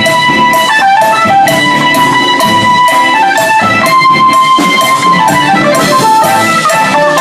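Band music: a lead instrument holds long sustained notes over drums and percussion.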